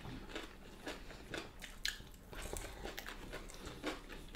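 Chewing and mouth sounds of people eating chicken salad and lettuce with their hands, with soft scattered clicks and small crunches.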